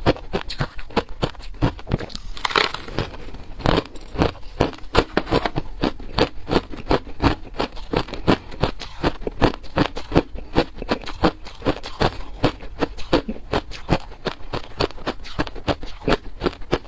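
Hard crushed ice being chewed close to a clip-on microphone: rapid, irregular crunches, several a second, without pause.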